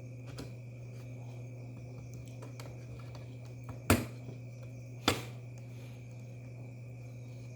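Two sharp clicks, a little over a second apart, from small objects being handled, over a steady low electrical hum.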